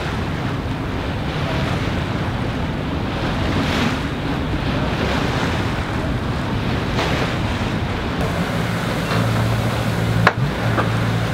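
Water rushing along the hull of a sailing yacht under way, with wind buffeting the microphone and a low steady hum underneath that grows louder in the last few seconds. A single sharp knock about ten seconds in.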